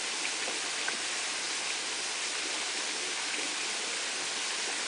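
Steady, even rushing noise like running water, unbroken throughout, with a few faint ticks.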